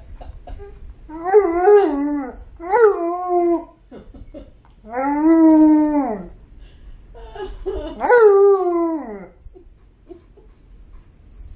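Alaskan Malamute howling four times, each howl rising then falling in pitch, the third the longest, with short breaks between. These are attention-seeking howls at its owner.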